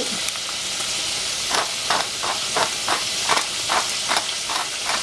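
Long green beans sizzling steadily in a stainless saucepan, with a hand-twisted pepper mill grinding over the pan: about ten short grinding clicks, roughly three a second, starting about a second and a half in.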